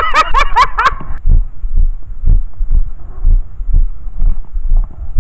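A loud voice in the first second, then the camera wearer's walking footsteps, heard as dull low thumps about one to two a second through a head-mounted camera.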